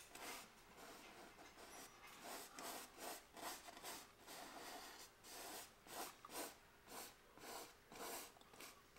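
Faint, short strokes of a small paintbrush brushing oil paint on a canvas, repeating about twice a second.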